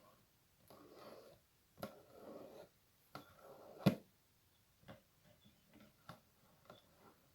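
Close-up ASMR rustling: three short spells of soft rustling in the first four seconds, broken by sharp little clicks or taps, the loudest just before the rustling stops; a few lighter taps follow.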